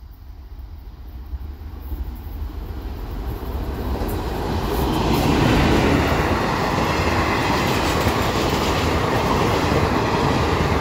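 Freight train running through on the main line: steady rumble of wheels on rail with clickety-clack, growing louder over the first five seconds or so, then holding steady and loud.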